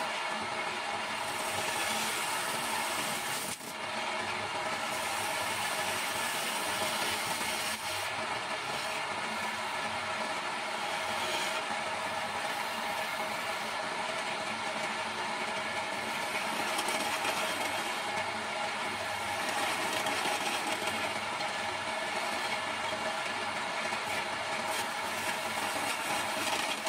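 Electric motor of a homemade wood lathe running steadily, with a hand-held chisel scraping and cutting the spinning wooden blank; the hiss of the cut swells and fades as the tool is pressed in and eased off.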